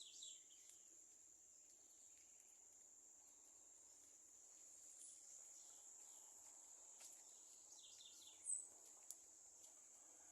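Faint, steady high-pitched insect buzz with a few scattered bird chirps, the loudest a short run of chirps about eight seconds in, over a faint low rumble.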